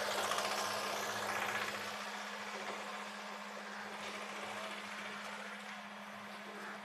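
Motor vehicle engine running with a steady low hum under street traffic noise; the noise is loudest in the first two seconds, then settles lower.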